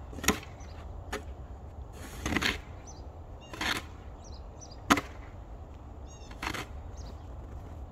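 Car driving slowly over rutted, packed snow and ice: a steady low rumble broken by six sharp cracks and crunches, one of them longer, a little over two seconds in.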